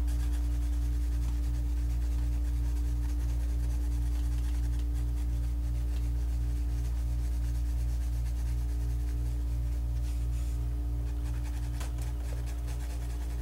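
Pencil strokes scratching and rubbing on paper while shading a drawing, faint beneath a steady low hum that pulses about three times a second.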